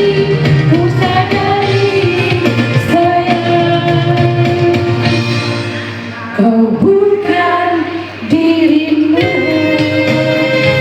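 A singer performing a melody with long held notes over instrumental backing music, with two short breaths between phrases in the second half.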